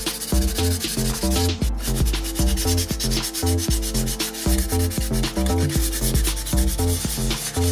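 Sandpaper rubbed by hand in quick back-and-forth strokes over the bare die-cast metal body part of a model car. Background music with a stepping bass line runs underneath.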